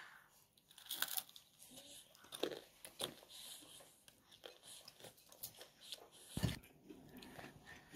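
Crispy batter-fried chicken being bitten and chewed: scattered faint crunches and crackles of the fried coating, with a duller knock about six and a half seconds in.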